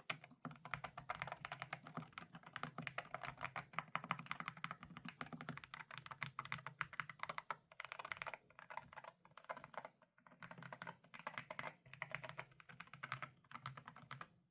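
Fast typing on a GMK67 mechanical keyboard with Akko V3 Pro Cream Yellow switches: a rapid stream of keystroke clacks with brief pauses, stopping at the end.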